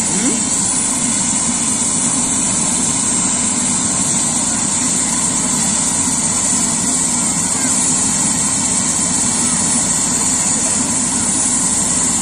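Helicopter on the ground with its turbine engine running steadily at idle: a constant high whine over a steady low rumble.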